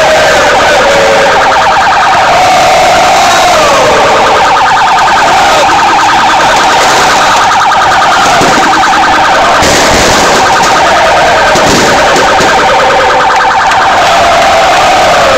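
Large crowd of football supporters singing and chanting, very loud and overloading the recording. A fast-pulsing, siren-like tone runs steadily under the voices.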